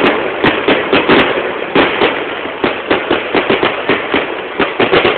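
Fireworks going off: a dense, irregular run of bangs and crackles, several a second.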